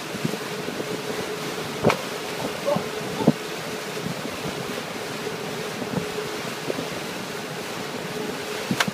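Rushing water of a motorboat's wake and wind buffeting the microphone, over a steady hum from the boat's engine. A few sharp knocks or gusts stand out, about two seconds in, about three seconds in and near the end.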